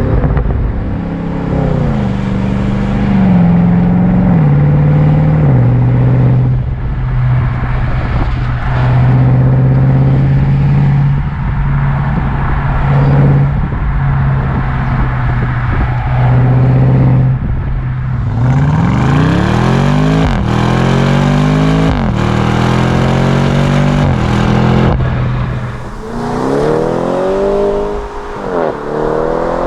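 BMW M550i's 4.4-litre twin-turbo V8 through an AC Schnitzer quad exhaust, heard from the rear of the car. It shifts through a few gears, then cruises at steady revs for about ten seconds. Then it accelerates hard, the revs climbing and dropping at each quick upshift with a sharp crack at the shifts, and climbs again near the end.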